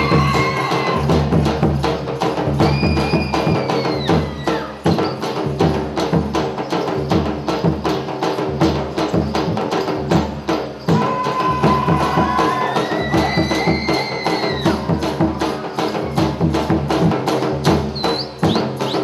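Gujarati folk dance music: a quick, even beat of sharp percussive strokes over a steady low accompaniment, with long held melodic notes that bend in pitch coming in a few times.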